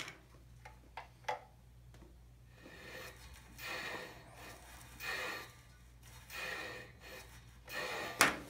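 Motorcycle spoked wheel turned by hand, with a soft rubbing swell about once every second and a half as it rotates past a marker or brake. A few sharp metallic clicks come first, and one more near the end.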